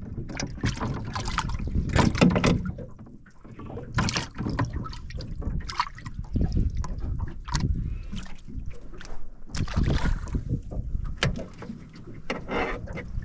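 Irregular knocks, clicks and rattles from a small fishing boat as gear is handled aboard, over a low rumble of wind and water.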